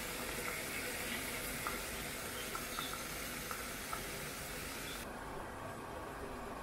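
Ribs sizzling in oil in a frying pan, with small crackles of spitting fat. About five seconds in the sizzle suddenly becomes duller as a glass lid goes on the pan.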